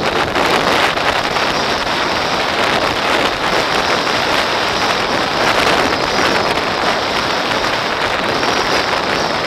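Mountain bike rolling fast on a gravel track, heard from a camera mounted on the bike: a loud, steady rushing and crunching with many small rattles, and wind buffeting the microphone.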